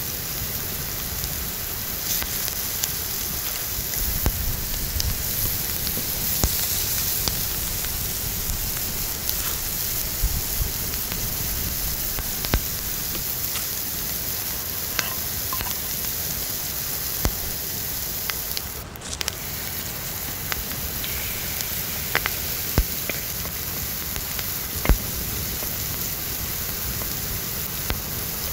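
Food frying in oil in a steel disc pan over a wood fire: a steady sizzle, with scattered sharp clicks from the wooden spatula and the crackling fire.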